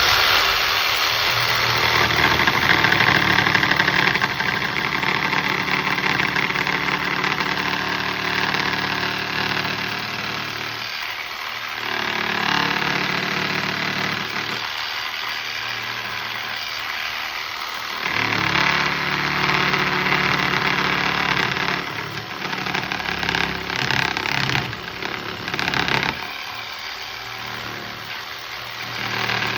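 Electric jigsaw running and cutting into wood in several bursts, with short pauses between them, as it works a notch deep enough to take the blade.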